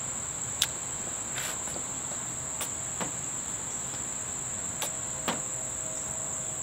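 Insects droning steadily in one high, continuous pitch, with about six soft clicks and taps of hands working meat on a plate and a squeeze bottle being handled.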